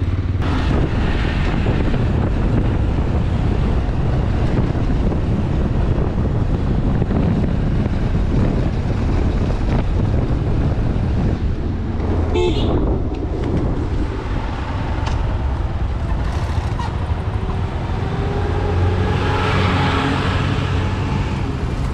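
Motorcycle riding at road speed: wind rushing over the microphone with the engine running underneath. A short horn toot sounds about halfway through.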